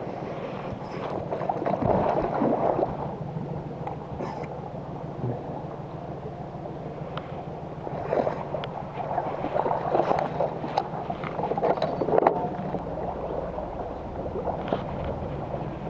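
Water sloshing and gurgling against a small boat, in irregular splashy patches over a steady low hum, with a few light clicks.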